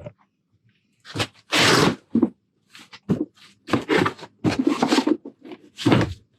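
Packaging being torn open and handled while unboxing a bucket dolly: crunching, tearing noises, one long tear about a second and a half in, then a quick run of them near the end.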